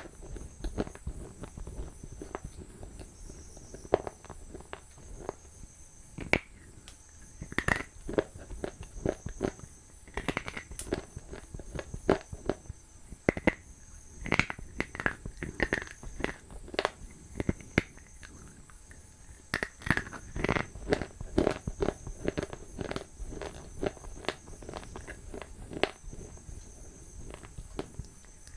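Close-miked eating sounds: a person biting and chewing crunchy food, making irregular crisp crunches and sharp mouth clicks, some much louder than others.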